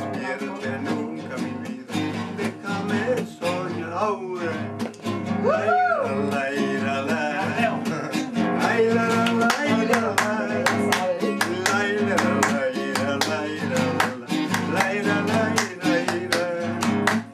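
Acoustic guitar strummed in a steady rhythm, an instrumental passage of a folk song.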